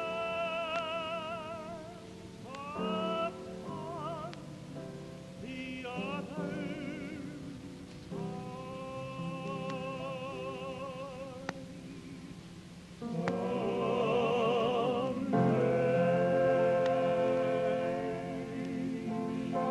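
A tenor singing a slow gospel song, holding long notes with wide vibrato over sustained backing chords. The singing grows louder about two-thirds of the way through.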